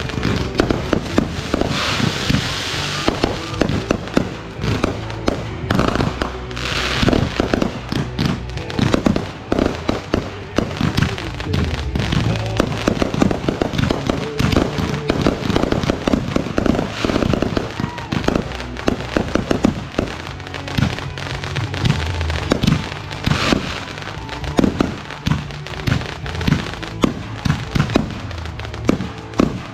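Backyard consumer fireworks going off in a dense, rapid barrage of bangs and crackles, with several hissing bursts, over music playing in the background.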